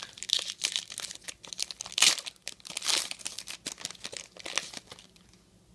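A foil trading-card pack being torn open and crinkled, with the cards inside shuffled; irregular crackling, sharpest about two and three seconds in, dying away near the end.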